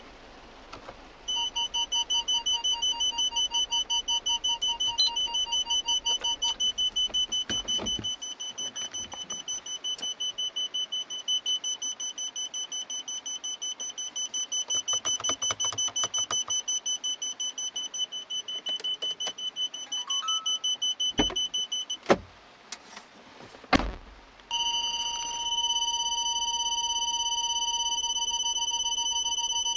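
Car parking-sensor warning beeping rapidly through the car's speakers, then, after a few sharp clicks, switching to one continuous tone near the end, the signal that the obstacle is very close. The warning sounds doubled, played both by the original parking sensors and by the aftermarket Bosion BX-440 head unit.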